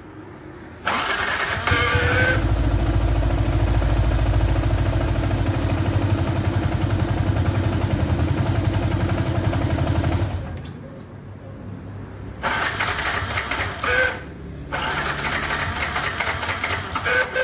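Yamaha R15 V3's single-cylinder engine running, steady and loud from about a second in, then dropping to a quieter, less even sound about ten seconds in.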